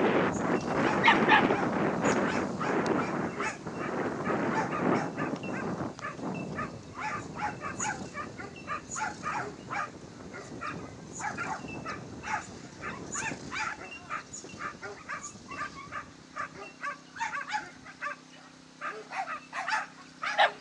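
Dogs yipping and barking excitedly in quick short calls, about three a second, over wind buffeting the microphone that dies away after the first few seconds. A faint steady low hum comes in near the end.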